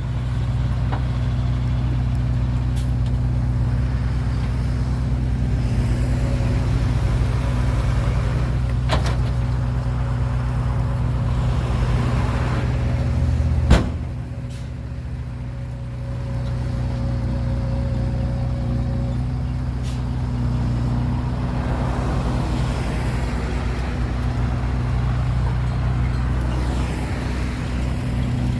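Heavy diesel earthmoving machine's engine running steadily. A single sharp bang about halfway through, after which the engine note drops for a couple of seconds before picking up again.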